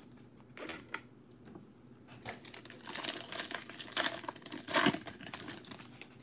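Wrapper of a trading-card pack crinkling and tearing as it is opened. The loudest rip comes near the end, after a few light clicks of handling.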